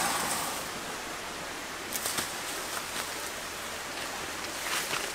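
Steady outdoor hiss with a few brief rustles and taps of a wooden stick poking through dry leaf litter and undergrowth: once at the start, twice about two seconds in, and again near the end.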